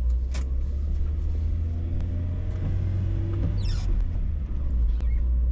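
Car driving, heard from inside the cabin: steady low engine and road rumble, with faint clicks about once a second.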